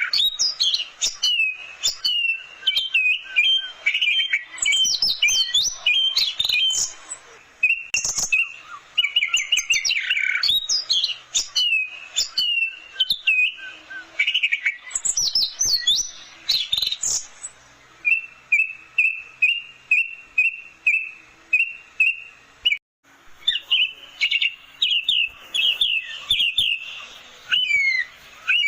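Orange-headed thrush (anis merah) singing continuously in varied, rapid phrases of whistled and chattering notes, with a run of short repeated notes in the second half.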